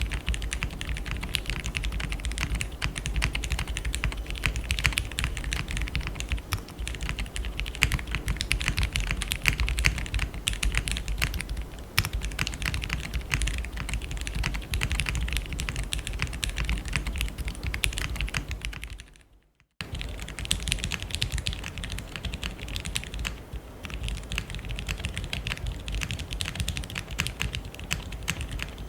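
Typing on a Gingko65 aluminium 65% mechanical keyboard with lubed Cherry MX Black Hyperglide linear switches, GMK keycaps and a polycarbonate plate with no foam: a dense, steady stream of keystrokes that breaks off for about half a second roughly two-thirds of the way through.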